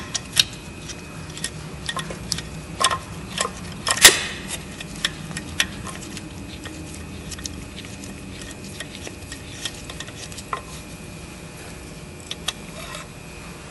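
Irregular metallic clicks and clinks of hand tools and parts being handled in a car engine bay while a tube fitting is unscrewed and disconnected, with several in the first few seconds and only a few after that.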